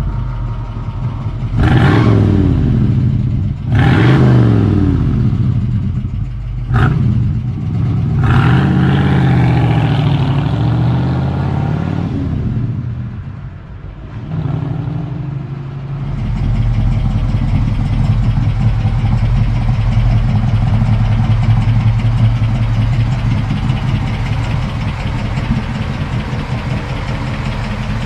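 1959 Ford F100's 292 Y-block V8 engine and exhaust: revved three times early on, then pulling away and fading briefly, then running steadily for the second half.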